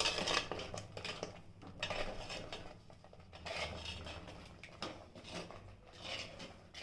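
Metal spoon stirring and scraping chilli-powdered masala paste around a cooking pot, in repeated uneven strokes with light clinks against the pan.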